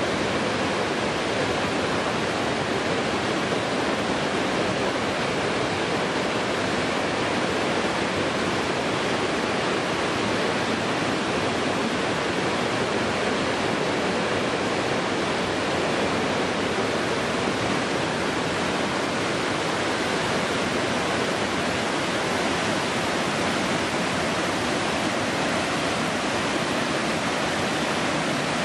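Waterfall cascading down a series of rock ledges: whitewater pouring and churning in a steady, full rush that does not change.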